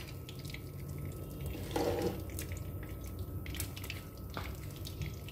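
Cooking oil heating in a frying pan, crackling faintly with scattered small pops and ticks.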